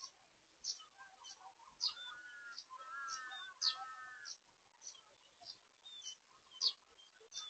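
Birds calling: short high chirps repeating about every half-second, with a warbling, gliding song phrase for a couple of seconds near the middle.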